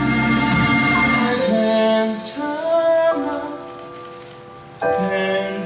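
Musical-theatre curtain-call music: a sung melody with long held notes over instruments. It falls quieter about three seconds in, and a new loud phrase comes in suddenly near the end.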